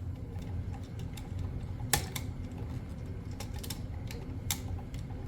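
Irregular small clicks and taps of hands working on a GFCI outlet and its wiring, with a sharper click about two seconds in and another about four and a half seconds in, over a steady low hum.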